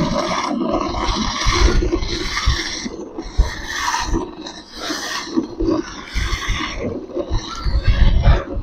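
Hand milking a cow: rhythmic hissing strokes of milk streams hitting the pail, about one a second, with low thuds underneath.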